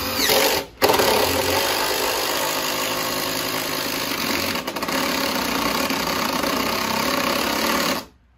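Cordless impact driver running almost without pause as it drives a FastenMaster LedgerLok structural screw into a deck ledger board, a self-drilling screw going in without a pilot hole. It stops briefly under a second in, then runs steadily for about seven seconds and stops near the end.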